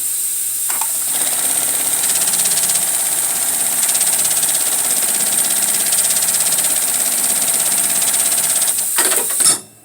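Industrial programmable sewing machine running a stitch cycle: a fast, even mechanical rhythm over a steady hiss, starting about a second in. Near the end it stops with a few clicks and the hiss cuts off suddenly.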